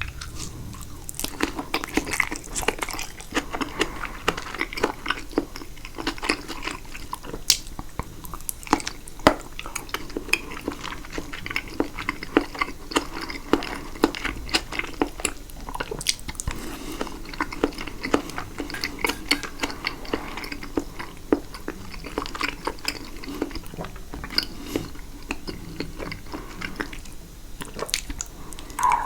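Steady chewing of caprese salad, tomato and fresh mozzarella in balsamic vinaigrette, with dense wet mouth clicks and smacks throughout.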